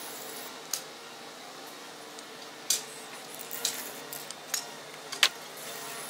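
Sheet-metal box and spray-paint can being handled: about five sharp, isolated metallic clicks and clinks, the loudest a little after five seconds in.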